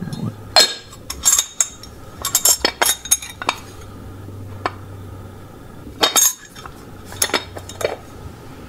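Miniature Wagner 1891 cast iron lidded pot being handled: the iron lid and wire bail handle clink and knock against the pot in irregular sharp clinks, some in quick clusters.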